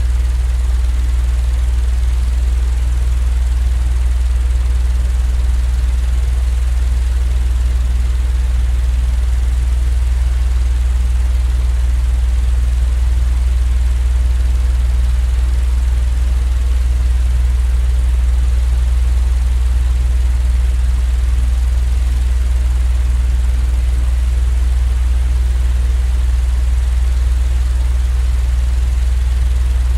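A steady, unchanging low machine drone with an even hiss above it: a continuous white-noise sleep sound with no breaks or changes.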